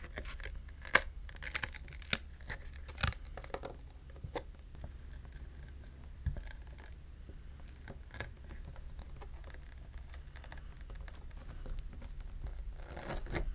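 Samsung Galaxy S23 back glass being peeled off its adhesive and lifted away from the frame: short crackles of the glue letting go and scattered light clicks of glass and fingers on the phone. The clicks come mostly in the first few seconds, with a brief cluster of crackles near the end.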